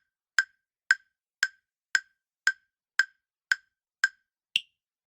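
Countdown timer sound effect: short, sharp wood-block-like ticks about two a second, the last one higher in pitch, then it stops.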